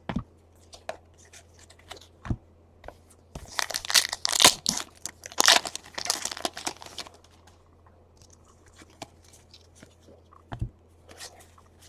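Trading-card pack wrapper being torn open and crinkled, in a dense stretch from about three and a half to seven seconds in, with scattered short taps and clicks around it.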